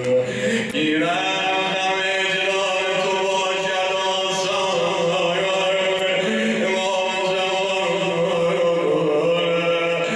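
A man chanting Shia devotional poetry solo in the madahi style. His voice holds long notes that slide slowly up and down in pitch.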